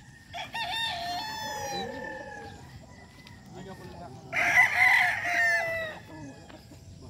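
Gamefowl roosters crowing: a long crow begins just after the start, and a second, louder crow comes about four seconds in.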